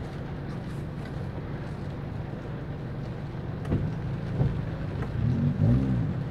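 Small car's engine idling steadily, heard from inside the cabin, with a couple of light knocks and a short rise and fall in pitch near the end.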